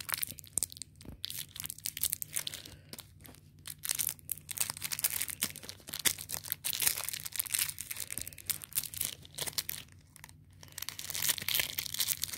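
Crinkling of a Whoppers candy pack's plastic wrapper as fingers squeeze and pinch the candy balls out of it, on and off, with short lulls.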